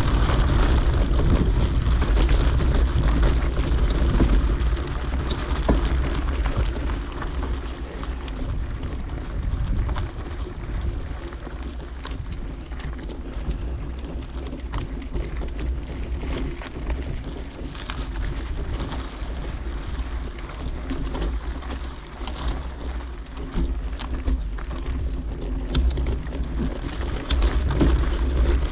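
Wind rumbling on a GoPro microphone on a mountain bike in motion, with tyre noise on the dirt track and scattered clicks and rattles from the bike. It is louder over the first several seconds, then eases.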